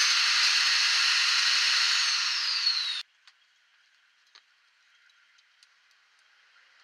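Table saw running with a steady rushing noise, a faint whine falling in pitch in its last second, then stopping abruptly about three seconds in. Near silence follows, with a few faint ticks.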